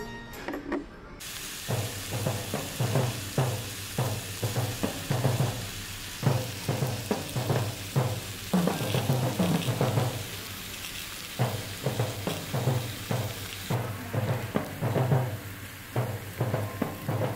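Steak sizzling and spitting on a hot cast-iron serving plate, a steady hiss with crackles. Background music with a steady low beat plays along.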